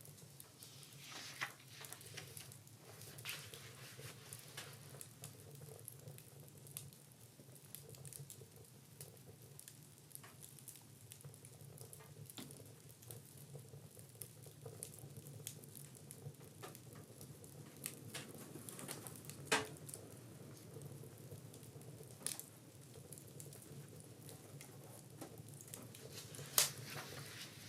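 Cooking on a wood-burning stove: a faint, steady crackle and sizzle over a low hum, with many small irregular ticks and a few sharper pops, the loudest about two-thirds of the way through and near the end.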